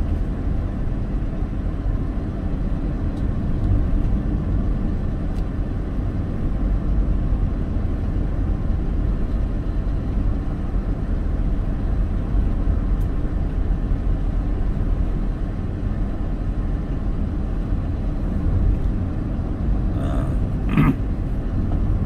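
Steady low rumble of a car driving, engine and tyres on asphalt, with a short higher sound about two seconds before the end.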